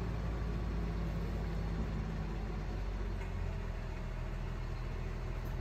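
Tipper truck's diesel engine running steadily with a low hum while its hydraulic hoist tips the tray and dumps a load of soil.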